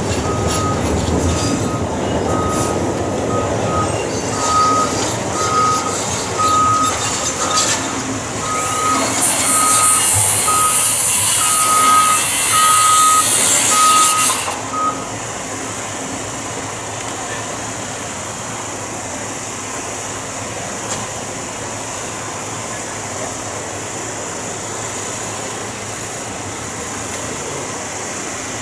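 A truck's reversing alarm beeps about once a second over engine and site noise, stopping about halfway through. Just before it stops there is a loud hiss of about five seconds that cuts off sharply, after which only steadier, quieter background noise remains.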